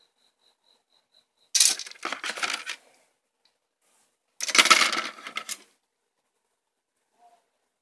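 Plastic model-kit runners and their packaging being handled, in two loud bursts of rattling and clattering plastic.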